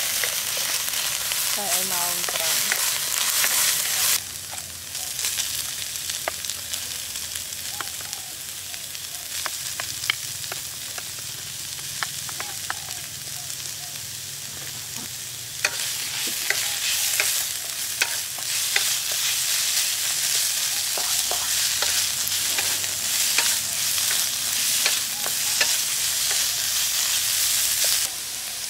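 Fish pieces and curry paste sizzling in a nonstick wok while being stirred with a wooden spatula, with frequent light clicks of the spatula against the pan. The sizzle drops to a quieter level about four seconds in and comes back louder about halfway through.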